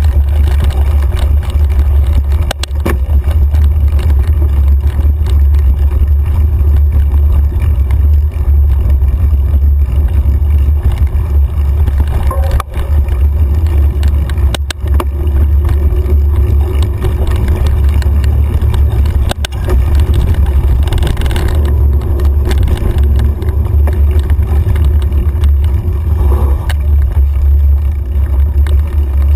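Mountain bike riding fast over a dirt trail, heard through a camera mounted on its handlebar: a steady low rumble of rolling and vibration, with a few sharp knocks from bumps.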